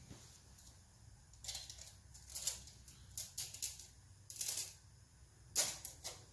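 A handful of short rustling, scraping handling noises, about five in all, the loudest near the end.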